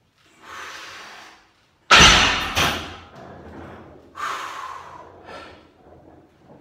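Lifter breathing hard while straining through a heavy barbell bench press. There is a soft breath, then a sudden loud forceful exhale about two seconds in that trails off, and two shorter breaths after it.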